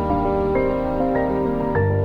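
Background music: calm ambient, new-age style, with soft notes struck about every half second over held tones, and a deeper sustained bass note coming in near the end.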